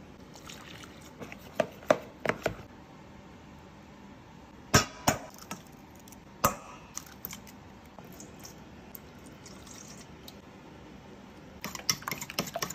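Scattered clicks and knocks of kitchen utensils against dishes, a few at a time, with a quick run of taps near the end.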